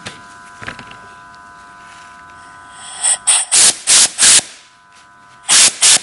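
Compressed-air blow gun fired in short hissing blasts to blow fuel and debris out of a small carburettor part with holes in it. A quick string of about five blasts comes about three seconds in, then two more near the end.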